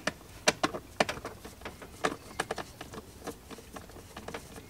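Scattered sharp clicks and light knocks of hand tools against metal and plastic dashboard parts, at no regular rhythm, while a small bolt holding a wire is taken out.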